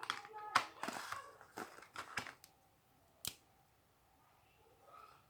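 A parcel being handled and opened by hand: a quick run of clicks and crinkling, rustling packaging for about two and a half seconds, then a single sharp click about a second later.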